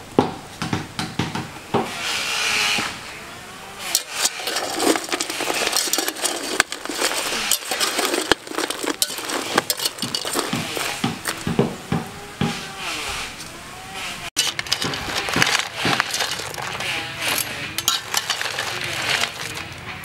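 Crabs being stirred and tossed with a metal wire skimmer in an aluminium pot: shells clattering, and metal clinking and scraping against the pot, in a quick run of clicks and knocks.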